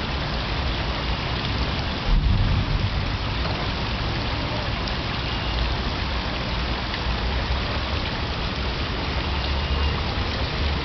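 Steady splash of a small water spout pouring into a swimming pool, with wind rumbling on the microphone and a brief louder bump about two seconds in.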